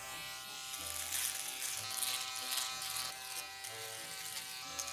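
Electric foil shaver running with a steady hum, cutting stubble on the neck.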